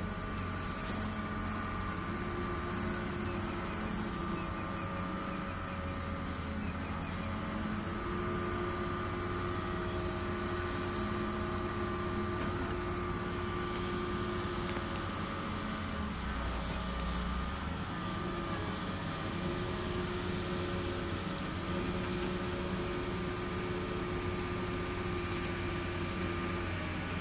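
Hitachi excavator's diesel engine running steadily under load, with a hydraulic whine that rises in and holds for several seconds at a time, four times over, as the machine travels downhill on its tracks.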